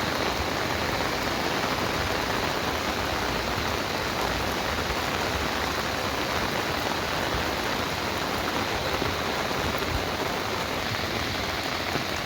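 Steady rain falling, an even, unbroken wash of noise that holds the same level throughout.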